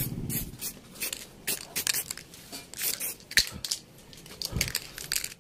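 Aerosol spray-paint can hissing in short, irregular bursts, about one or two a second, as paint is sprayed onto plastic motorcycle fairings.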